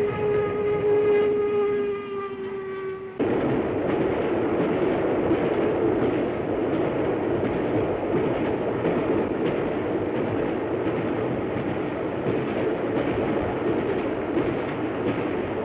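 Steam locomotive whistle sounding one long note that falls slightly in pitch and cuts off suddenly about three seconds in. After it comes the steady running noise of the express steam train at speed.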